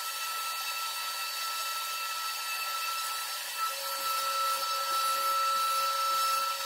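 Electric hand sander with dust extraction running steadily against a wooden table frame, a constant whine over a hiss of sanding. A second, lower steady tone joins a little over halfway through.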